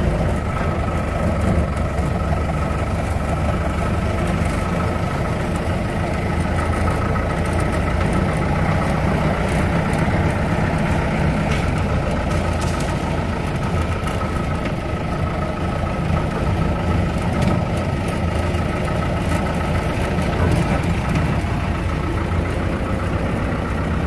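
Jeep engine running steadily as the jeep drives along a rough dirt track, heard from inside the open-sided cab, with a faint steady high whine over it.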